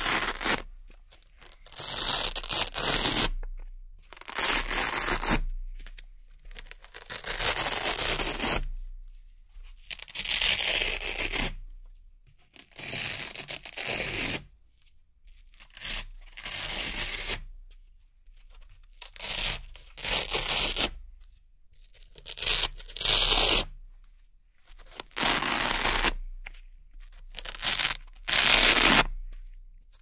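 Hook-and-loop (Velcro) dots and strips being peeled off one after another: about fifteen crisp ripping rasps, some brief and some drawn out over a second or more, with short pauses between them.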